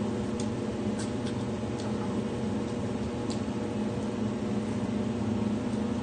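A steady mechanical hum of a running machine, with a few faint clicks scattered through it.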